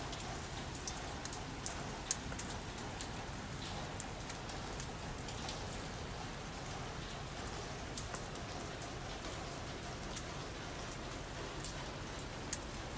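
Steady rain falling on paths and foliage, with scattered sharp ticks of individual drops landing close by, the loudest about two seconds in.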